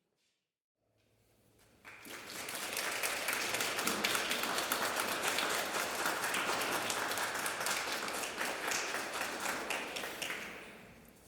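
Audience applauding. It starts after a moment of silence, swells within a second or two, holds steady and dies away near the end.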